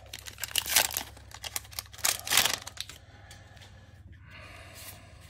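Foil wrapper of a Magic: The Gathering booster pack being torn open and crinkled by hand, a quick run of crackles over the first three seconds, then fainter rustling as the stack of cards is handled.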